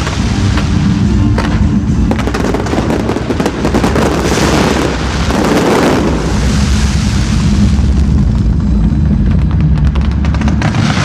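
Fireworks bursting and crackling in quick succession, with a dense run of crackles a couple of seconds in.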